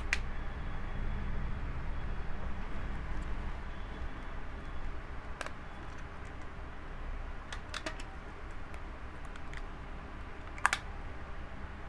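Rubber bands being stretched and snapped around a smartphone to clamp its freshly glued replacement screen glass: a few light, sharp snaps and taps, the loudest near the end, over a steady low hum.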